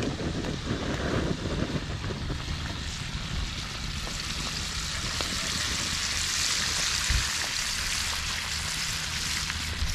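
A whole chicken deep-frying in a pot of hot oil: a steady, dense sizzle of bubbling oil with fine crackling.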